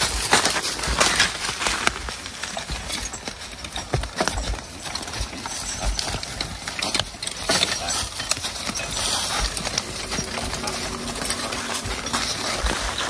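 Belgian draft horses walking, with irregular clops and knocks of their hooves.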